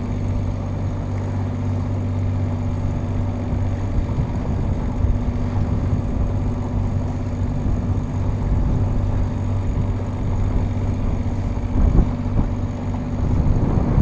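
A sailing yacht's engine running steadily under way, a constant low hum with water and wind noise beneath it. There is a brief knock about twelve seconds in.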